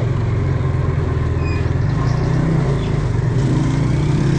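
Small motorcycle engine running steadily at low revs, an even hum.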